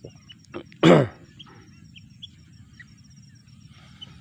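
A man coughs once, a short loud hoarse cough about a second in, from a chill he thinks he has caught. Behind it, an insect keeps up a fast, steady high trill, with a few faint bird chirps.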